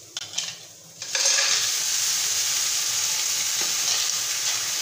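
Tulya clams tipped into a hot frying pan of oil and sautéed aromatics: a few light clicks, then about a second in a loud sizzling starts suddenly and holds steady as the shells hit the hot oil.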